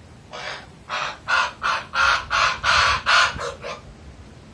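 Common raven calling: a run of about ten harsh croaking calls, roughly three a second, the last two shorter.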